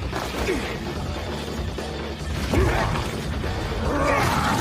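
Anime fight-scene soundtrack: music mixed with crashing, rumbling combat sound effects, getting louder about two and a half seconds in, with a voice shouting near the end.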